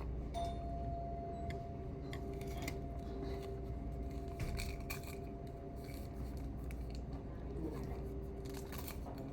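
Eating utensils clicking and tapping against a bowl in scattered light strikes over steady restaurant background noise, with a faint steady tone starting about half a second in and fading out about halfway through.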